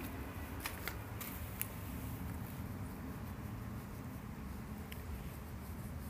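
A few light clicks and rustles from a handheld phone being moved about, over a steady low outdoor rumble.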